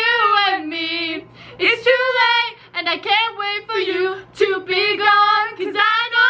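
Two girls singing together loudly, their voices sliding up and down through phrases separated by short breaks for breath.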